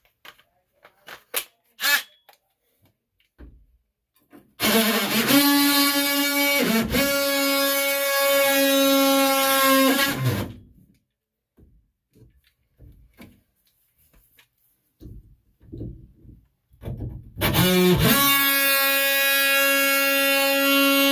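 A power cutting tool running in two long runs with a steady buzzing whine, the first about six seconds long and the second starting about three-quarters of the way in, as more is cut off to enlarge the opening for the shower control valve. Light knocks and clicks between the runs.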